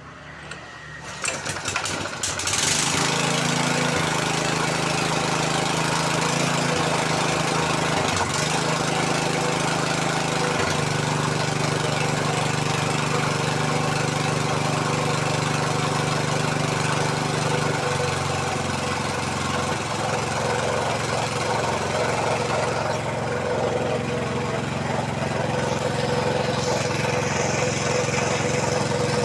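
Stationary engine of a freshly finished suction machine starting a second or two in, then running steadily and smoothly. Its note shifts slightly a couple of times.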